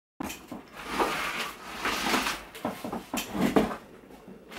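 Cables being plugged back into the rear of a desktop PC case: irregular clicks, scrapes and rustling of plugs and cords, coming in several bursts.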